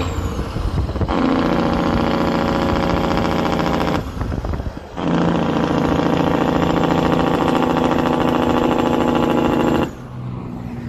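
Semi truck with straight stacks running on its engine brake (jake brake): a loud, steady, rapidly pulsing exhaust note in two long stretches, the first about a second in and the second a second after it stops, with road noise in between.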